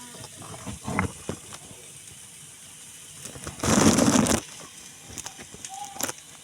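Cooking in a pan: a low hiss with a few light knocks, then a loud burst of hissing sizzle lasting under a second about halfway through.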